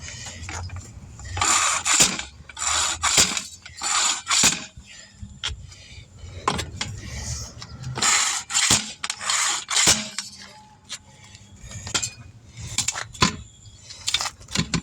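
A string of irregular metallic clinks, knocks and scrapes as hand tools are worked against a rusty steel wheel rim during a manual tire change.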